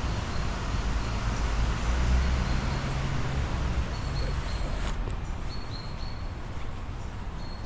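Outdoor ambience of a low rumble, heavier in the first half, with birds chirping: short high chirps come in from about halfway through. There is a single sharp click a little past halfway.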